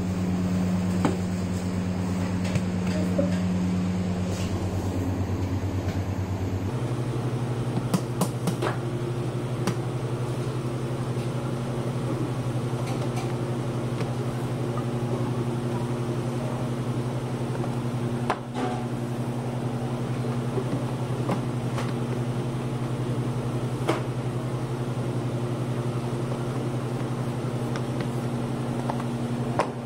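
Steady low machine hum that steps to a slightly higher pitch about seven seconds in, with scattered soft knocks and taps as hands press and slap dough on the table.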